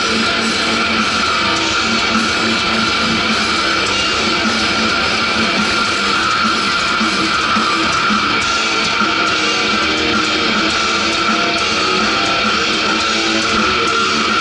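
Heavy metal band playing live through a PA: distorted electric guitar over bass guitar and drums, heard from out in a large hall.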